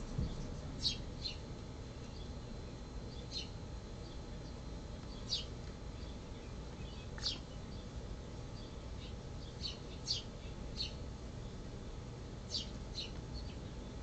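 Northern cardinal giving sharp, high chip calls: about ten short chips, single or in quick pairs, spaced a second or two apart.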